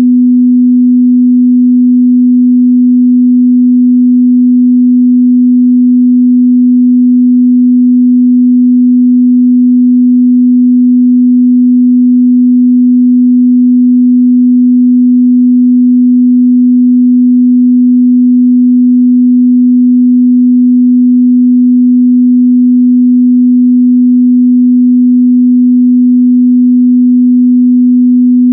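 A steady, loud 248 Hz sine-wave test tone, one unbroken low hum-like pitch with no change in level.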